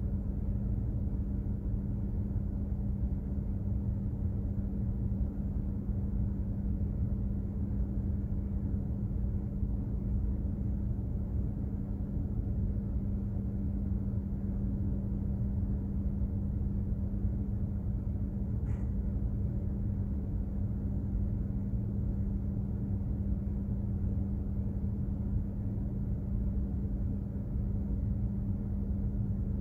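Steady low rumble of a container ship's machinery under way, with a constant hum. A faint single tick about two-thirds of the way through.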